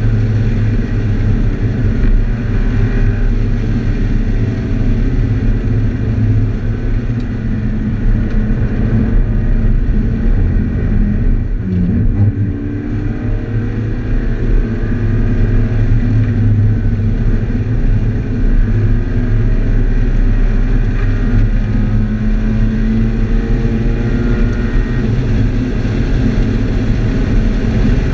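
2013 Scion FR-S's flat-four engine running hard at track speed, heard from inside the cabin, its pitch rising and falling repeatedly with throttle and gear changes and a brief dip in level about twelve seconds in. Tyre and road noise lie underneath.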